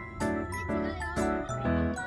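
Background music: a bright tune of pitched notes changing about twice a second, with a light jingling quality.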